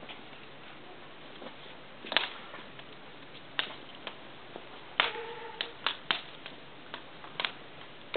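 Romanian Carpathian Shepherd puppies' claws clicking on stone paving as they walk about: scattered sharp ticks, with a short squeak about five seconds in.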